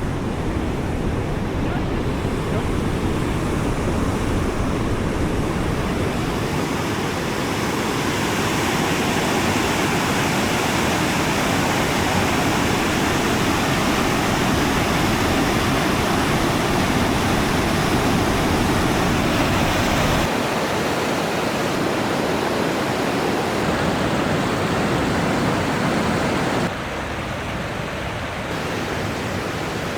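Large river rapids rushing: a steady, dense noise of white water. The sound changes abruptly twice, about twenty and twenty-seven seconds in.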